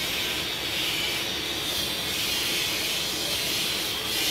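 Steady high hiss with no distinct knocks or clicks.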